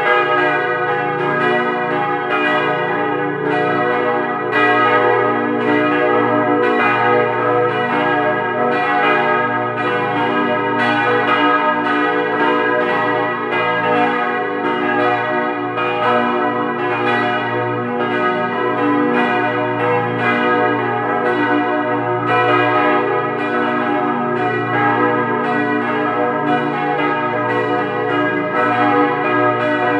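Several large church bells, cast by Rüetschi in 1927, swinging and ringing together, heard up close in the belfry. Their overlapping strikes come in quick, irregular succession over a continuous deep hum from the three-tonne bourdon.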